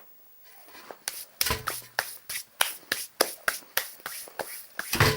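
Crunchy chewing of a chocolate digestive biscuit: a quick run of crisp crunches, about four a second, starting about a second in.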